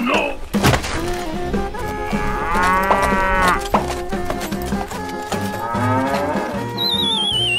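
Cow mooing twice, two long drawn-out moos a few seconds apart, over light background music. Near the end a wavering, falling whistle-like tone begins.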